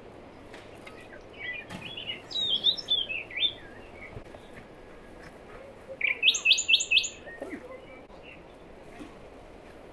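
Songbirds singing: a high warbling phrase from about one and a half to three and a half seconds in, then a quick run of about five bright rising notes a little past six seconds, over a steady faint hiss.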